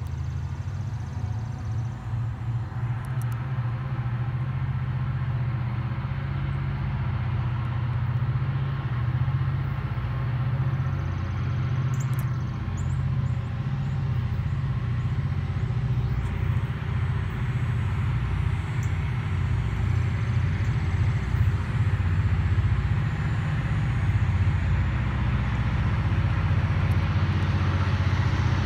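Diesel locomotives of an approaching freight train: a low, steady engine drone that slowly grows louder.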